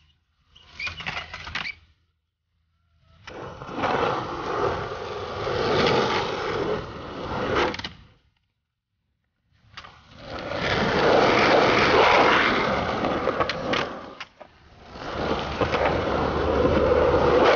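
Skateboard wheels rolling on concrete in several separate stretches, each starting and stopping abruptly, with a few sharp clacks of the board.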